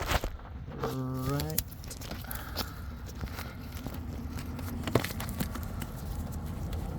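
Rustling, crackling handling noise with scattered light clicks and one sharper click about five seconds in, from hands moving around a car's engine bay. A short drawn-out vocal sound comes about a second in.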